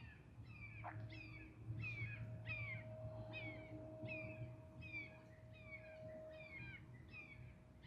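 Faint bird calls: a steady series of short, downward-sliding notes, about two a second, over a faint steady hum.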